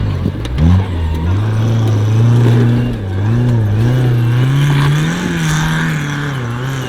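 Off-road 4x4's engine revving under load, its pitch dropping sharply just after the start, climbing back, then rising and falling repeatedly as the throttle is worked.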